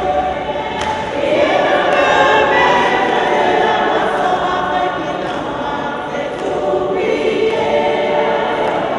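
A choir of women singing a hymn together, many voices holding long, wavering notes.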